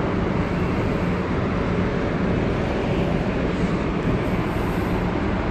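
Steady low rumble with a faint constant hum: the background noise on a ship's open deck in port, wind on the microphone mixed with the ship's running machinery.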